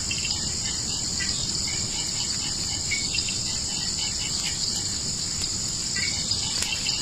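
Night chorus of crickets and other insects: a steady high-pitched drone with scattered short chirps beneath it.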